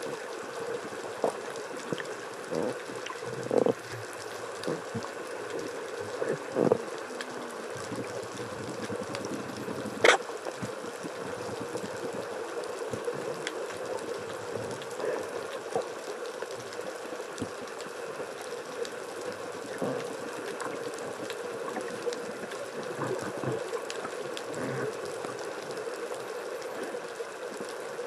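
Underwater ambience: a steady, muffled rush of water. There are a few soft knocks in the first seven seconds and one sharp click about ten seconds in.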